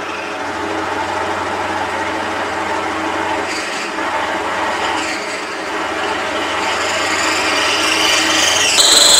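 Milling machine running with its end mill cutting into a forged steel hammer head: a steady machine hum under a grinding, rasping cutting noise. Near the end the cut turns into a high-pitched squeal.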